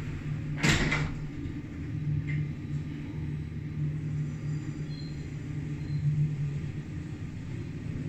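Schindler passenger lift with glass doors, heard as a steady low hum while it runs. A short, loud burst of noise comes a little under a second in.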